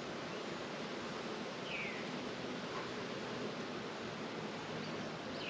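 A steady hum of honeybees around an open hive, over even outdoor noise. A bird gives a short falling call twice, about two seconds in and near the end.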